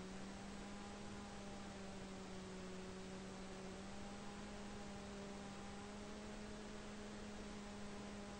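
Electric motor and propeller of a Mako flying wing, a faint steady drone under hiss, rising slightly in pitch near the end as the autopilot adds throttle.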